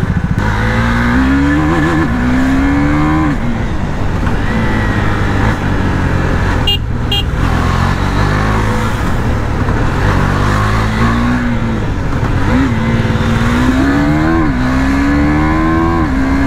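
KTM Duke 390 single-cylinder engine accelerating hard through the gears, the revs climbing and then dropping sharply at each quickshifter upshift, with a steady rush of wind over the helmet microphone. There is a brief sharp sound or two about halfway through.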